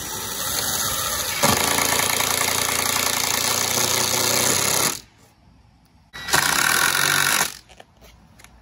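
Cordless drill driving screws into a pine wood frame: one long run of about five seconds, then a second shorter burst of about a second.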